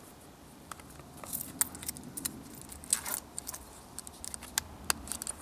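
Handling of a leather knife-sheath pouch as it is opened and small items are taken out: scattered light clicks, taps and rustles.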